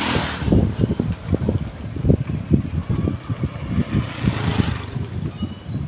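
Wind buffeting the microphone while riding along a road, giving an uneven low rumble, with a motor scooter passing about four seconds in.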